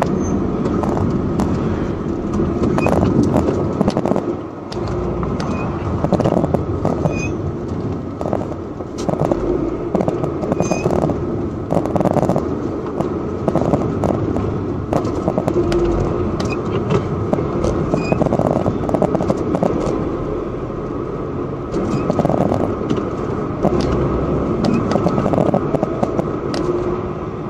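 Road and engine noise of a moving car heard from inside the cabin, a steady rumble with frequent small clicks and rattles scattered through it.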